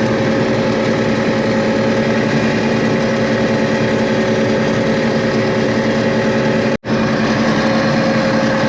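John Deere 6620 combine running steadily while harvesting wheat, its diesel engine and threshing machinery making a constant drone with a steady hum. The sound drops out for an instant about two-thirds of the way through, then the same drone resumes.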